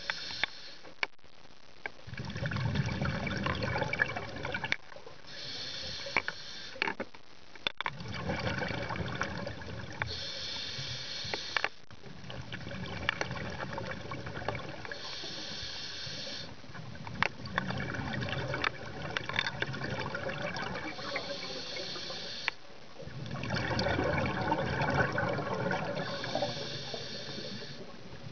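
Scuba diver breathing through a regulator, heard underwater. Each breath is a high hiss followed by a lower, bubbling rush, coming about every five seconds.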